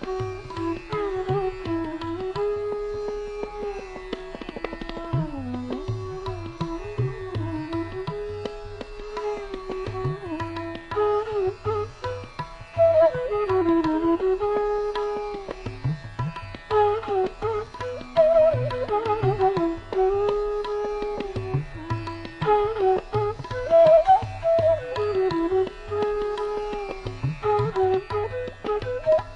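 Background Indian classical instrumental music: a melody with gliding, bending ornaments over tabla drumming.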